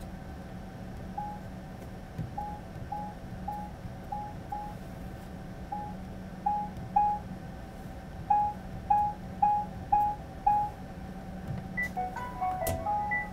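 Whirlpool dryer control panel beeping with each button press: short single-pitch beeps, soft at first and markedly louder from about six seconds in, once the volume setting has been raised. Near the end a short falling chime plays as the dryer is switched off at the power button.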